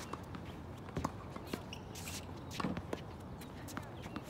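Footsteps and shoe scuffs of a tennis player moving on a hard court between backhand strokes. A sharp crack of the racket hitting a ball comes right at the start and again at the very end, with a few fainter knocks in between.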